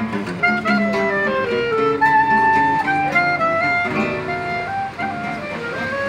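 Clarinet playing a choro melody in held, stepping notes over a plucked acoustic guitar accompaniment.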